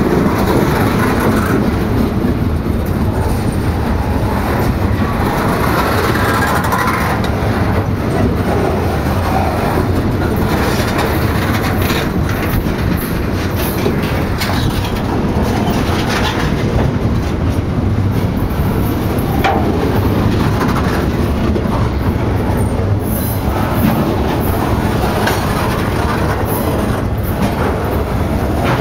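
Loaded log cars of a long freight train rolling past at close range: a loud, steady rumble of steel wheels on rail, with scattered clacks from the wheels.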